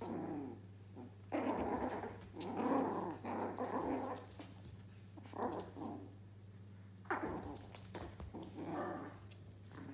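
Yorkshire terrier puppies growling as they play-fight, in several short rough bouts with brief pauses between them.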